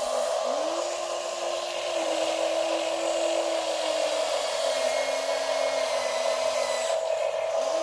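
Small electric motors of radio-controlled construction models whining steadily. A second motor's pitch slides up and down several times as it speeds up and slows down.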